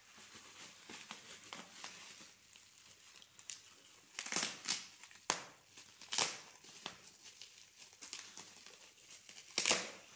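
Bubble wrap crinkling and crackling as hands handle and unwrap a boxed package. There are several louder crackles about four to six seconds in, and one near the end.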